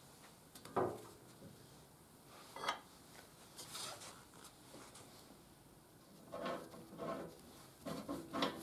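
Metal-on-metal knocks and clatter as a motorcycle swing arm is lifted off a steel bench and fitted into the frame's pivot. A few separate knocks come first, then a denser run of clattering and scraping near the end as it is worked into place.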